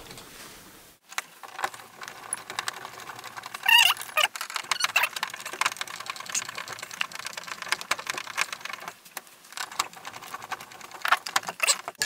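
Screwdriver driving the mounting screws of a wall outlet into a remodel electrical box: dense, irregular small clicks and scrapes of metal on metal and plastic. A brief high-pitched squeak comes about four seconds in.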